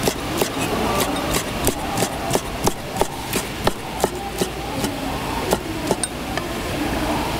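Kitchen knife slicing through soondae (Korean blood sausage) and knocking on a wooden cutting board with each cut, about three even chops a second. The chops pause briefly past the middle, and a couple more cuts follow, over a steady background hum.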